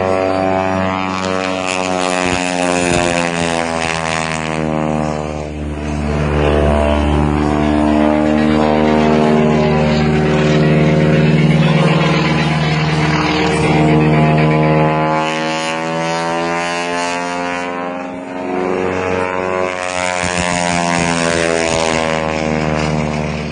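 Propeller airplane's engine running loudly through an aerobatic display, its pitch falling and rising as the plane passes and turns, with dips in pitch about five seconds in and again near the end.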